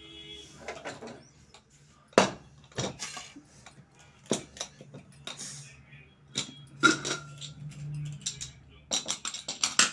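Metal pressure cooker and its lid being handled: a string of sharp metallic knocks and clinks, with loud ones about two seconds in and around seven seconds, and a quick cluster near the end.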